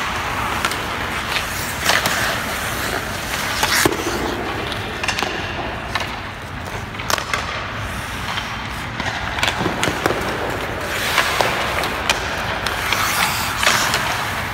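Ice skate blades scraping and carving on rink ice, in swells of hiss as the skaters push off and stop, with scattered sharp clicks and knocks.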